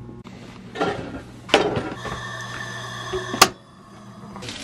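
Chef's knife chopping a red onion on a plastic cutting board: a few sharp knocks, the last the loudest, over a low steady hum.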